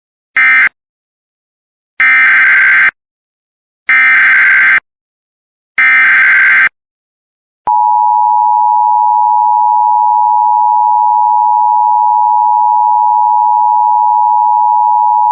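Emergency Alert System tones. The last short burst of the previous alert's end-of-message code is followed by three longer warbling SAME data bursts of the next alert's header, about two seconds apart. Then the EAS two-tone attention signal comes in as a steady, loud tone for about eight seconds.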